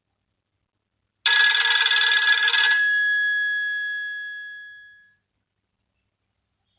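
Nokia 2600 classic mobile phone playing a bell-like ringtone. A jangling ring starts about a second in and lasts about a second and a half, then two clear tones ring on and die away over about two and a half seconds.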